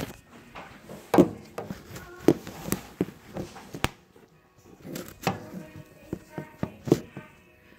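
Irregular knocks and bumps of a phone being handled and moved about, with faint music playing underneath.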